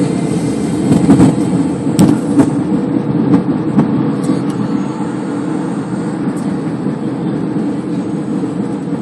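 Steady engine and road noise of a car driving along a highway, heard from inside the cabin.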